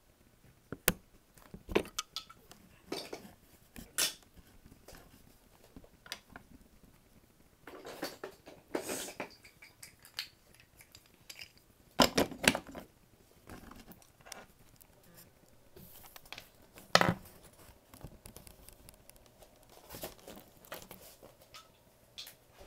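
Hands handling wooden toy railway pieces: scattered wooden clicks, knocks and rustles at an uneven pace, with louder clusters of clattering about halfway through and again about three quarters of the way through.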